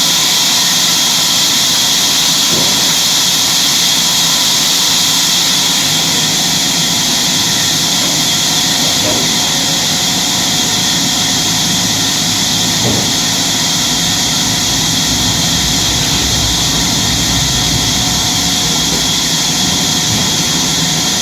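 Sawmill saw machinery running steadily, a loud continuous whine and hiss with a few faint knocks.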